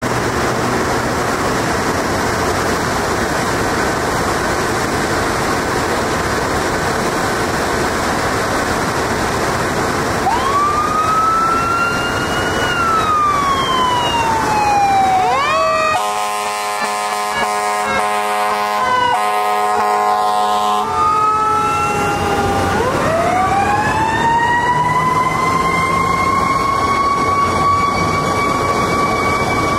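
A fire engine leaves under steady engine and road noise, then its siren wails up and falls away twice. There are several long blasts on the air horn, and the siren then winds up again and holds a high steady note.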